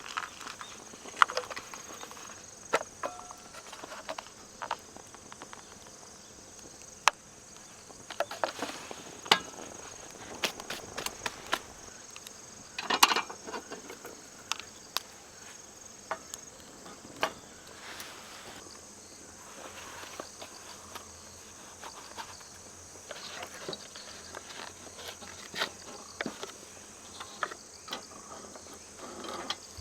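Insects, crickets by their steady high chirring, drone without a break, with scattered sharp clicks and knocks on top, a brief louder clatter about halfway through.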